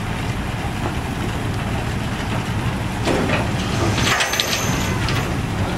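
Truck crane's engine running steadily as it lifts an overturned loaded dump truck, with a cluster of sharp cracks and creaks about three to four seconds in.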